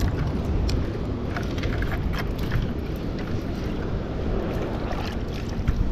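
Steady low rumble of wind on the microphone mixed with surf washing against jetty rocks, with a few light clicks scattered through it.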